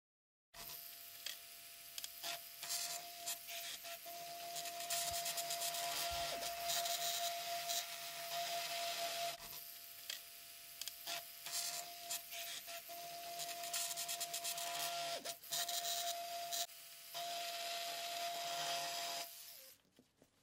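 Electric toothbrush scrubbing a small watch movement bridge with paste on a glass plate: a steady motor whine under a rough rubbing hiss. It pauses briefly about halfway and again near the end, then stops shortly before the end.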